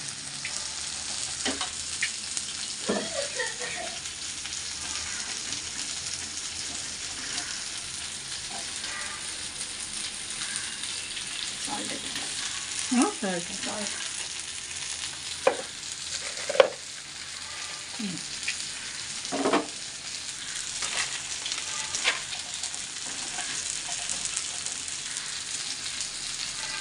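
Sand whiting fish shallow-frying in a little oil in a pan, a steady sizzle throughout. Several brief knocks and scrapes stand out over it, mostly in the middle stretch.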